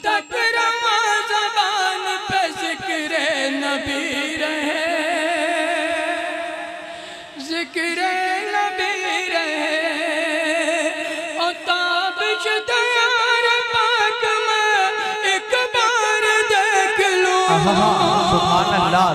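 A man sings a naat alone in a classical style, drawing out long, ornamented notes whose pitch wavers and slides, with no instruments.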